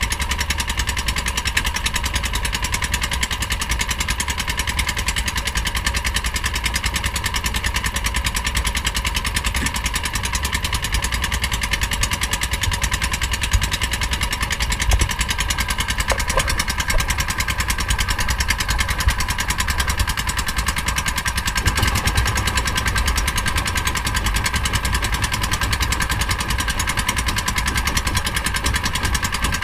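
Engine of a small outrigger fishing boat running steadily, with a few light knocks in the middle.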